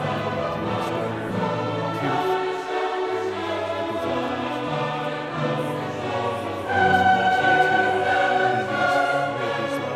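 Background music with sung choral voices over held notes, growing louder about seven seconds in.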